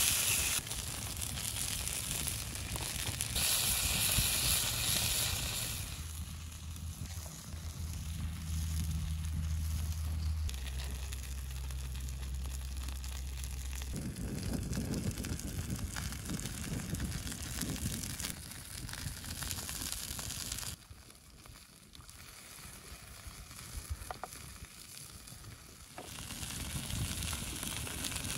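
Beef burger patties sizzling on a hot stone slab over an open wood fire, with the fire crackling. The sizzle is loudest over the first few seconds.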